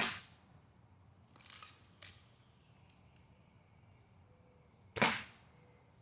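Daisy Red Ryder spring-powered BB gun fired twice, about five seconds apart, each shot a sharp crack. Between the shots the gun is cocked again: a short scrape and then a click about two seconds in.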